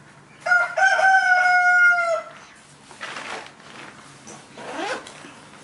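A rooster crowing once: a long call that holds one note and dips slightly at the end. Fainter rustling follows as the padded bike travel bag is handled.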